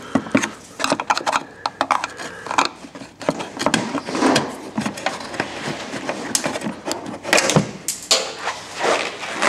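Plastic trim covers over a Tesla Model S's upper control arms being unclipped and handled: a run of irregular clicks, knocks and rattling plastic.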